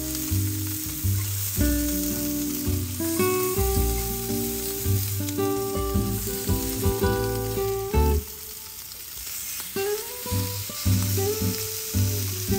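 Thin slices of meat sizzling on a hot slotted yakiniku grill plate over a tabletop stove, a steady hiss, under background music with a melody of sustained notes.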